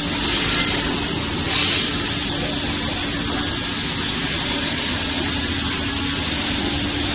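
Automatic cross-cut saw machine running with a steady hum, broken by two short, louder bursts of hiss about half a second and about a second and a half in.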